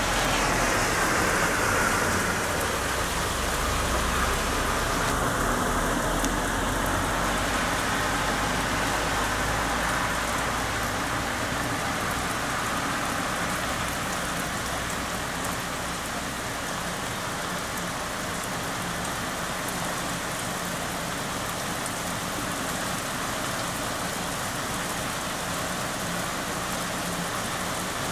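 Heavy rain falling steadily in a thunderstorm, with a low rumble underneath for the first ten seconds or so.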